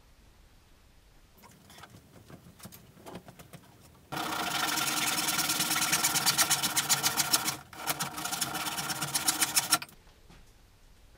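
Hand saw cutting through a thin wooden strip. A few light scrapes come first, then about six seconds of fast, steady sawing strokes with a short pause in the middle.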